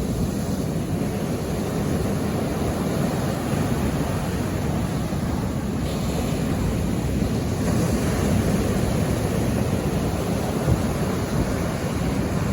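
Ocean surf washing steadily onto the shore, swelling a little about eight seconds in, with wind rumbling on the microphone.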